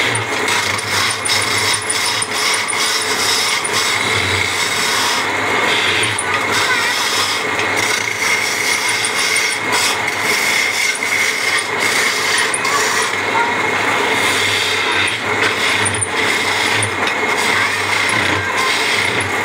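Wood lathe running while a hand-held turning chisel scrapes and cuts the spinning wooden charpai leg: a continuous rasping with a steady high whine.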